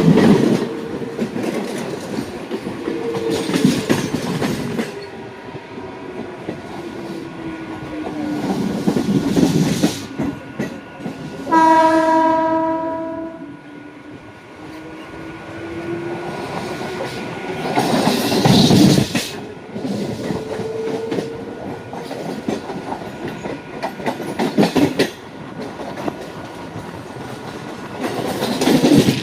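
Mumbai suburban EMU local train running on the track as it pulls out, its wheels clattering over rail joints and points, with louder swells of clatter every few seconds. A steady whine slides down in pitch and then back up. About twelve seconds in, the train's horn gives one blast of about a second and a half.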